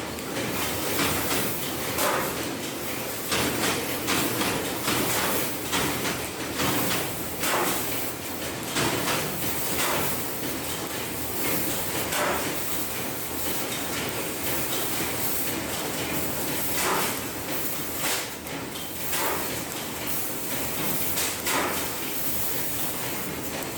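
Fiber laser cutting machine at work on sheet metal: a steady hiss with irregular sharp clicks and knocks.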